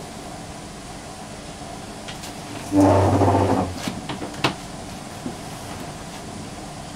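A desk chair dragged across the floor with a loud, groaning scrape lasting about a second, followed by a few light knocks as someone settles into it. A steady faint hiss runs underneath.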